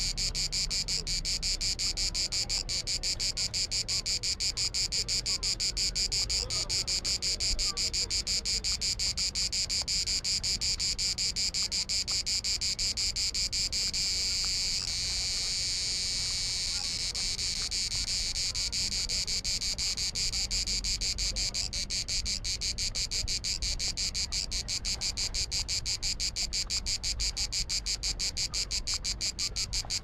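A single cicada calling with a fast, even train of clicks. About halfway through, the clicks run together into a continuous buzz for a few seconds, then break back into clicks that slow and spread out near the end.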